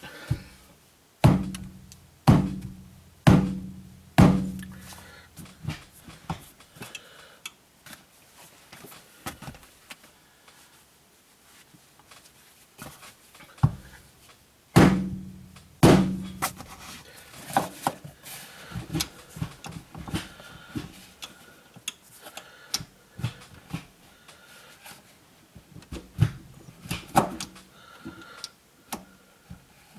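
Heavy metallic thunks and lighter clicks and rattles from the 1994 Saab 9000's short shifter and linkage being worked while its reverse lockout is adjusted. There is a run of four heavy thunks about a second apart near the start, then two more about halfway.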